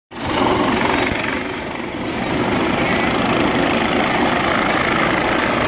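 Police escort vehicles, a sheriff's patrol car and patrol SUVs, driving slowly past with a steady noise of engines and tyres.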